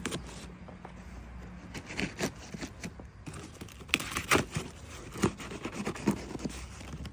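Cardboard shipping box and its packaging being handled and opened: scattered scrapes, tearing and sharp knocks, the loudest a few knocks about four to five seconds in.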